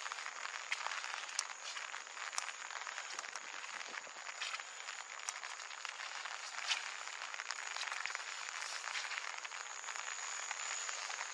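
Steady rain falling, an even hiss dotted with scattered sharp ticks of drops, with a thin high steady tone above it.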